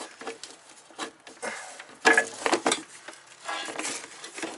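Irregular light metallic clinks and rustling as parts and hoses are handled in a car's engine bay, with a louder clatter about two seconds in.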